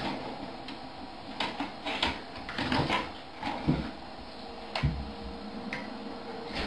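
Irregular clinks and knocks of stainless-steel dog bowls being handled and set down on a wooden floor.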